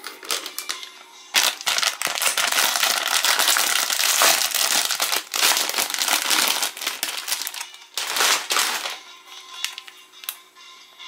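Plastic snack wrapper of a packaged croissant crinkling loudly as it is handled and pulled open by hand, in dense rustling for several seconds, fading near the end as the cap is taken out.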